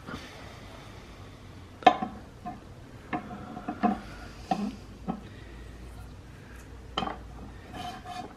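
Metal clinks and knocks as a Mazda 13B rotary engine's aluminium rotor housing is handled and lowered over the dowel pins onto the housing below: about six sharp hits with a short ring, the loudest about two seconds in.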